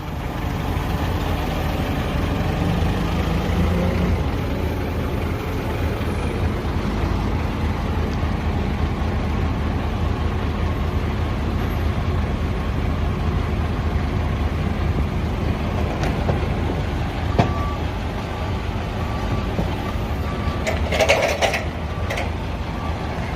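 Truck engine running steadily with a low rumble. From about two-thirds of the way in a short beep repeats at regular intervals, and a brief burst of hissing noise comes near the end.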